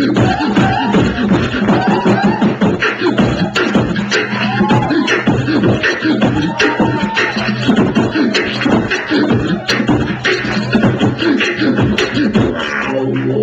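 Beatboxing into a microphone over a PA: quick vocal drum hits and short pitched vocal sweeps in a steady beat, with a steady low bass tone underneath.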